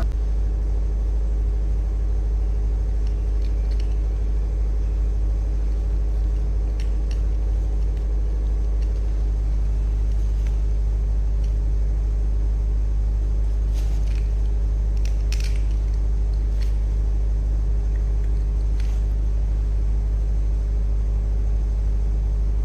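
A steady low hum, even throughout, with a few faint clicks scattered through it.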